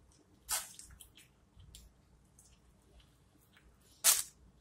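A person chewing sauce-coated buffalo chicken wings: wet chewing and small mouth clicks, with two short, louder wet smacks, one about half a second in and one near the end.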